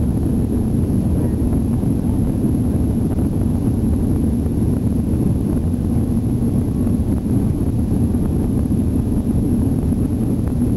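Steady cabin noise of a jet airliner on the ground, heard from a window seat: engines running and air rushing, a low, even rumble that holds level throughout.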